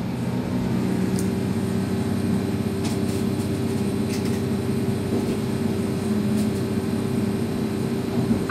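Train running along the track, heard from inside the driver's cab: a steady low drone with a few held hum tones and occasional faint ticks.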